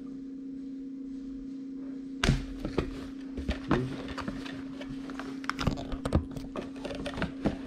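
A cardboard kit box being handled and opened: a sharp thump a little over two seconds in, then scattered taps, knocks and light rustles. A steady low hum runs underneath.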